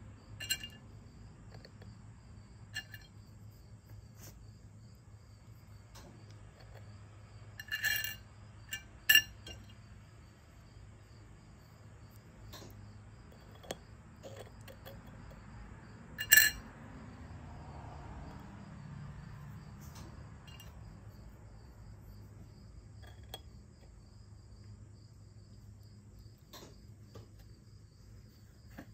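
Shards of glass set down one by one on a glazed clay coaster: scattered sharp clinks and taps, the loudest about eight, nine and sixteen seconds in. A faint, high, pulsing tone runs underneath.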